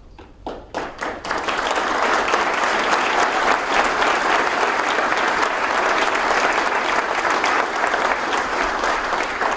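Audience applauding: a few scattered claps build within about a second into full, steady applause, easing off slightly near the end.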